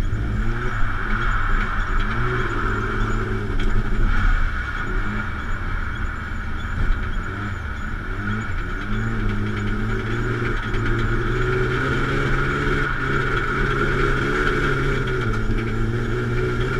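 Car engine heard from inside the cabin, its pitch rising and falling with the throttle at moderate revs, over a steady higher-pitched rushing noise.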